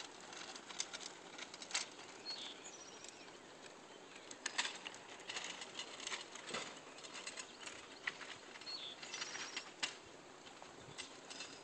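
Carpet snagged in a tree flapping and popping in the wind: irregular sharp pops over a steady rush of wind.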